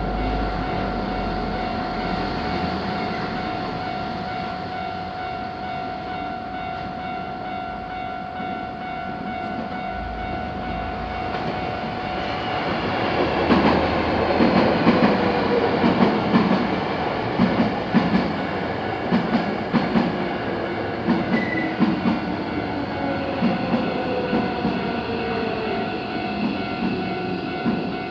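Japanese railroad crossing warning alarm ringing steadily. From about halfway a train passes over the crossing, its wheels clacking rhythmically over the rail joints.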